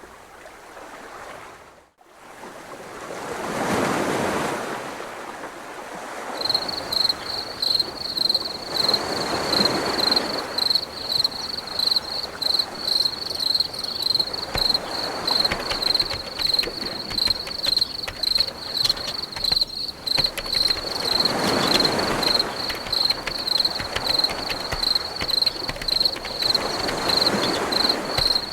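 Surf waves washing in and receding, a swell about every five to six seconds. From about six seconds in, a high, rhythmic chirping repeats about twice a second over the waves.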